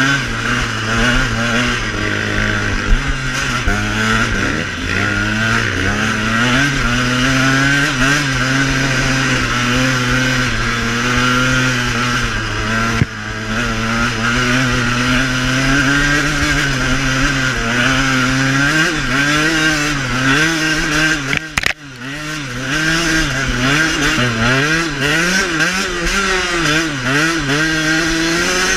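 KTM dirt bike engine running under throttle on a trail ride, its pitch rising and falling in quick waves as the rider works the throttle. It drops away sharply for a moment about three-quarters of the way through, then picks up again.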